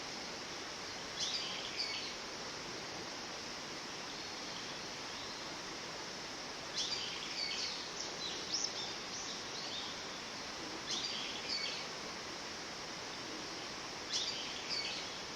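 Japanese paradise flycatcher singing short phrases in four bouts, a few seconds apart, over a steady background hiss.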